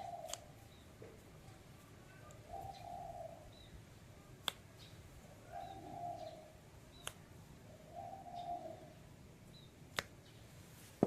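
A bird cooing, a low call repeated four times about every three seconds. A few sharp clicks fall between the calls, the loudest midway and near the end.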